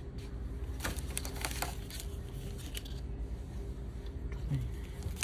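Quiet indoor background hum with a few light clicks and rustles of handling, clustered about a second in.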